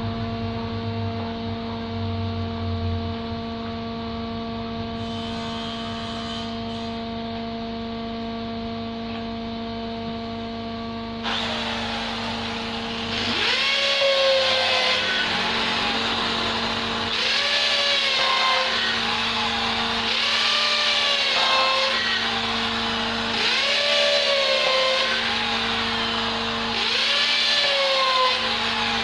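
Electric drill motor running with a steady hum. About 11 s in, a louder rushing whir starts, and from about 13 s the pitch swells up and falls back five times, roughly every three and a half seconds.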